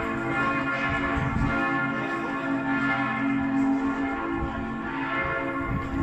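Church bells ringing, several bells sounding together in a continuous, overlapping peal.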